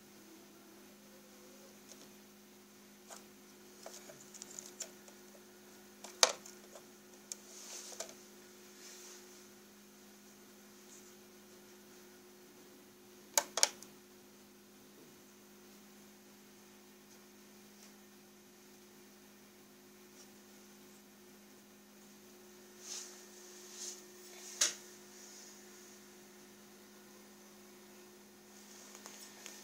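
Steady low electrical hum, with scattered sharp clicks and knocks: one about six seconds in, a quick pair near the middle and a few more later.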